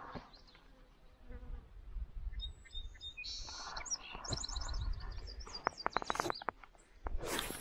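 Small birds chirping and insects buzzing close by, over a low wind rumble. About two thirds of the way through comes a quick run of sharp clicks, and near the end a short rustle.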